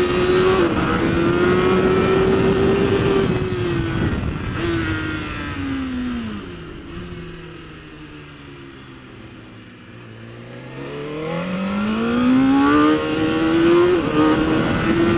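BMW S1000RR superbike's inline-four with a muffled exhaust, heard onboard over wind rush. It pulls hard at high revs with a gear change early on, then the revs fall steadily for several seconds as the bike slows into a corner and the sound goes quieter. It then climbs again on the throttle, with two quick upshifts near the end.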